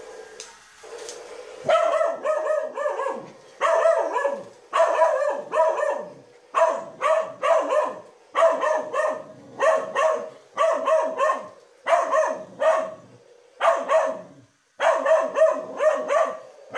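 Miniature schnauzer alarm-barking at a remote-control Tyrannosaurus rex toy, in rapid clusters of two to four sharp barks about once a second. The barking sets in about two seconds in, after a steady electric whir from the toy's motor.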